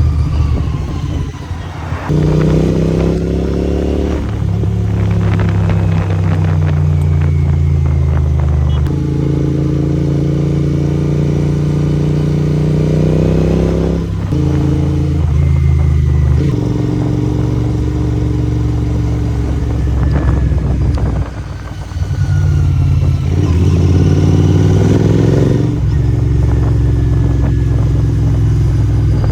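Royal Enfield Interceptor 650's parallel-twin engine and exhaust running under way. The engine note holds steady for stretches, then shifts up or down several times as the throttle and gears change, with brief drops in level about two seconds in and again past twenty seconds.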